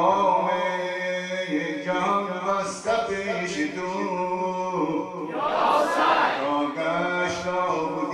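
A man chanting a Persian mourning elegy (noha) into a microphone, drawing out long sustained notes without distinct words. There is a brief hiss about six seconds in.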